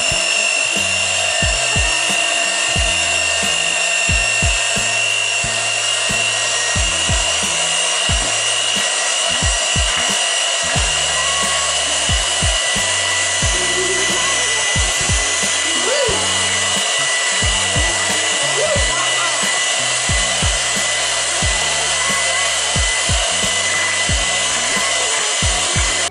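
Electric hand mixer running steadily with a high motor whine, its beaters whisking biscuit mixture in a bowl. Background music with a stepping bass line plays under it.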